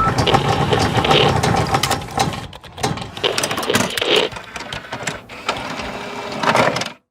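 Sewing machine running with a busy mechanical clatter, in uneven spells, then cutting off suddenly near the end.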